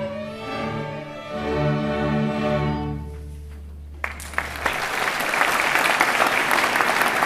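Student string orchestra of violins, cellos and basses playing the closing bars of a piece, ending on a held low note. Audience applause breaks out about four seconds in and grows louder.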